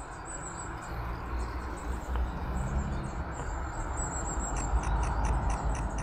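Thin, high calls of a flock of long-tailed tits, repeated again and again, over a steady low rumble and hiss.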